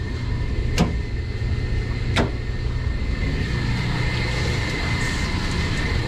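Steady hum of running circulating pumps and boiler-room machinery, with a thin steady whine above it. Two sharp clicks sound, about a second in and again a second and a half later, as the pump's switch on the electrical disconnect panel is worked.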